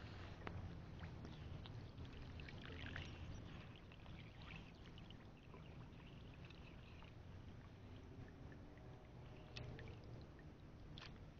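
Faint water sloshing and trickling around someone wading in shallow reservoir water, with a few light knocks.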